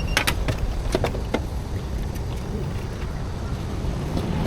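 Steady low rumble of outdoor street background noise, with a few sharp clicks and knocks in the first second and a half.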